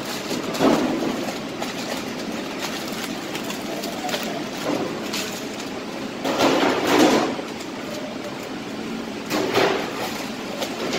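Steady machine noise of a commercial kitchen, with a few scattered clattering knocks of things being handled, the loudest a second-long clatter about two-thirds of the way through.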